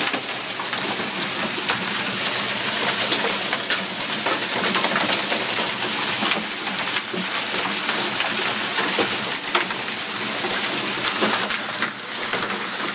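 Heavy downpour of rain mixed with hail, a steady loud hiss of falling water studded with many sharp ticks of hailstones striking hard surfaces.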